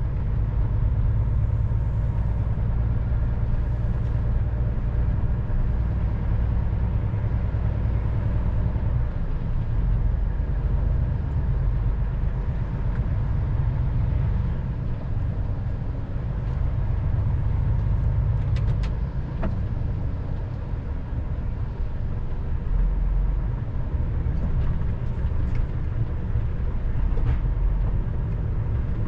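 Truck engine and road noise heard inside the cab while driving at low speed, a steady low drone that eases off a little about two-thirds of the way through. A few light clicks come just before that.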